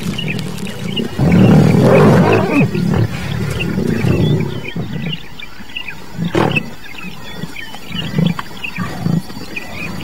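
Male lion growling over a warthog kill, guarding it from the rest of the pride. The longest, loudest growl comes about a second in, followed by several shorter growls.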